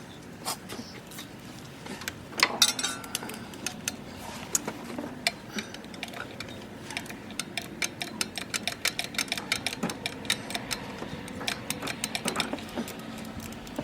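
Socket ratchet clicking while a spark plug is worked on the engine: scattered clicks at first, then a fast run of clicks through the second half.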